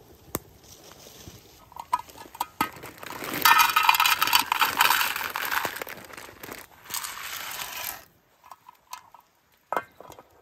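Dry pasta poured into a metal camp pot. A few light clinks, then a dense rattle about three seconds in that lasts about five seconds and cuts off suddenly, followed by a few more clinks.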